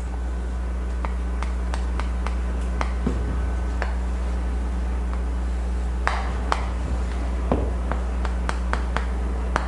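Chalk on a chalkboard: a string of sharp taps and short scraping strokes as lines are drawn and small labels written, some six seconds in. Under it runs a steady low hum.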